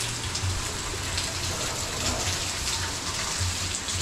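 Steady rushing, water-like noise, with uneven low rumbles underneath.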